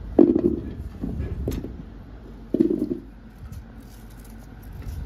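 Handfuls of peeled raw green mangoes dropped into a large aluminium pot, landing with dull thuds against the metal and each other: two loud ones, about a quarter second and two and a half seconds in, with a few lighter knocks between.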